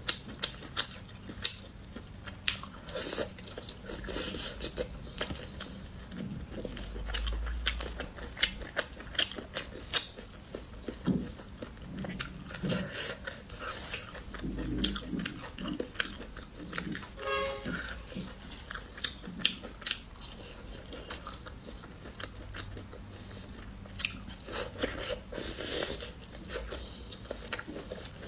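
Close-miked biting and chewing of sauced grilled baby chicks, with many irregular sharp crunches as the small bones break between the teeth.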